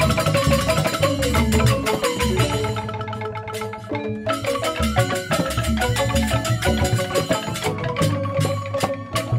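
Joged bumbung gamelan playing: bamboo xylophones struck in quick, dense interlocking patterns with ringing notes, over low drum strokes.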